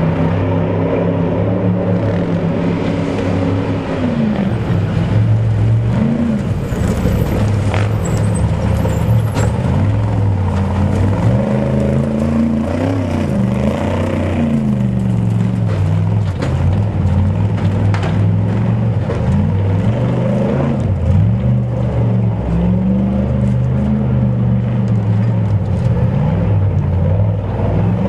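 Off-road race truck engines running hard, revving up and falling back over and over as the trucks pass, with a few sharp knocks along the way.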